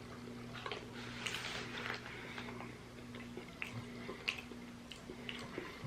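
A person chewing a soft, sticky toffee-filled chocolate biscuit: small wet mouth clicks and smacks scattered through, over a steady low hum.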